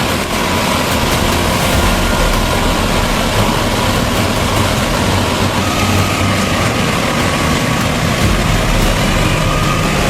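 Diesel-powered portable sawmill running steadily, with a constant engine and machinery noise.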